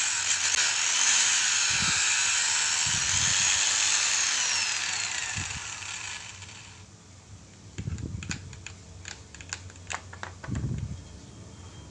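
Electric angle grinder running with a rubber flip-flop disc on its spindle while the disc's edge is rubbed round, then switched off about four seconds in, its whine falling as it spins down. After that, a string of light clicks and knocks as the locking nut is undone and the disc handled.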